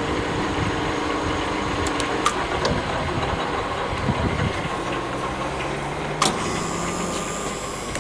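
Victor 400 x 1500G centre lathe's spindle and geared headstock running steadily at about 600 rpm while being run through its speed range. A click about two seconds in, where the steady tones drop away, and a sharper click about six seconds in, after which it runs on with a different, higher whine at the next speed.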